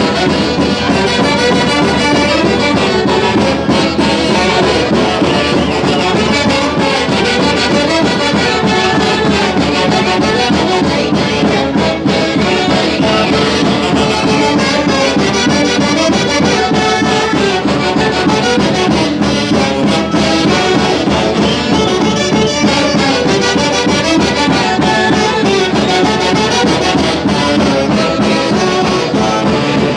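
A Peruvian folk orchestra playing a Santiago tune live, led by wind and brass instruments, loud and unbroken.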